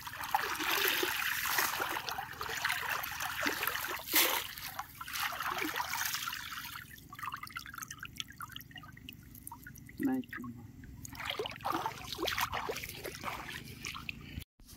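Water sloshing and splashing as a fishing net is worked and hauled through shallow river water, with one sharper splash about four seconds in. After about six seconds the splashing dies down to water dripping and trickling off the lifted net.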